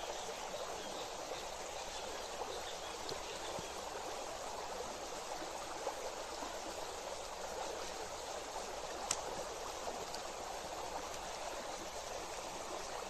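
Flowing stream water rushing steadily, with a single sharp click about nine seconds in.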